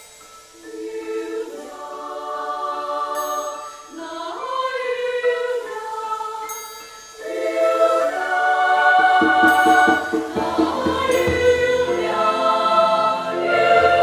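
Girls' choir singing held chords in close harmony with piano accompaniment. It swells louder about seven seconds in, and low piano notes join soon after.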